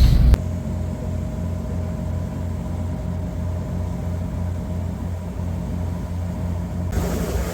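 Fishing boat's engine running steadily: a low, evenly pulsing drone with a faint steady whine above it. A louder rushing noise cuts off abruptly a moment in, and a hiss returns near the end.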